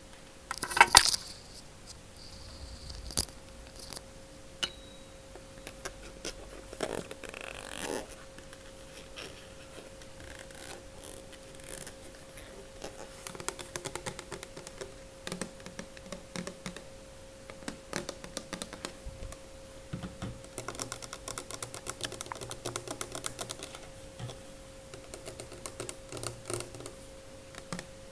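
ASMR tapping on objects: quick runs of light fingernail clicks, thickening into fast tapping in the second half, with a louder rustling burst about a second in.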